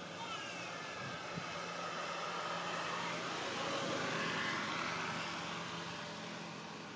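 Engine noise of a distant motor passing by, growing louder to a peak about four seconds in and then fading, over a steady low hum.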